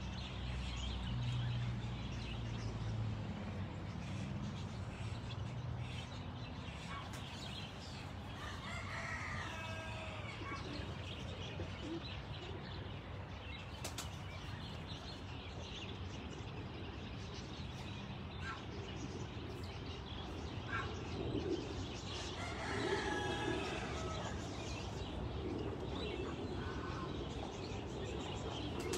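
Barnyard fowl calling: scattered chirps and clucks, with two longer, drawn-out calls, one about eight seconds in and one about twenty-two seconds in. A low hum runs under the first few seconds.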